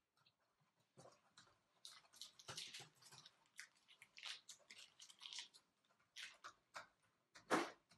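A person chewing a crunchy snack: irregular crunches, the loudest near the end.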